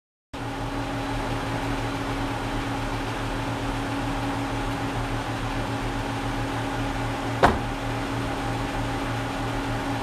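A car's engine idling with a steady hum. The driver's door is shut once with a single thump about three-quarters of the way through.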